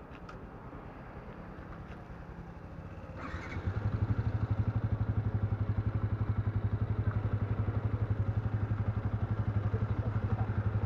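A motorcycle idles quietly. About three seconds in there is a short clatter, and a second, louder motorcycle engine starts close by and settles into a steady, evenly pulsing idle.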